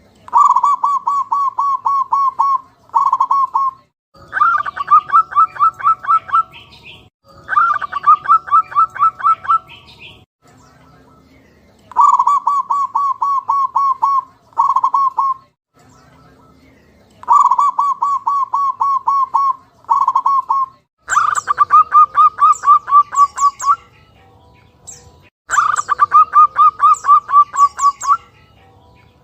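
Zebra dove (perkutut) calling: repeated phrases of rapid pulsed cooing notes, each phrase lasting two to three seconds, some followed by a short tag, with brief pauses between them.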